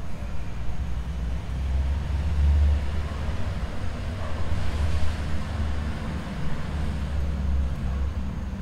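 A low, steady rumble, its energy at the bass end, swelling and easing slightly.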